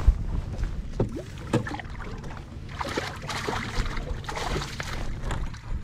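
Wind rumbling on the microphone in a fishing boat, with scattered knocks and clicks. About three seconds in there is a short rush of splashing as a hooked fish is fought at the surface near the boat.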